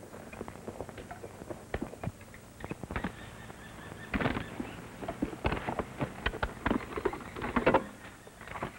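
Wooden crate being handled and opened: a string of irregular knocks, clicks and scrapes, busier and louder in the second half.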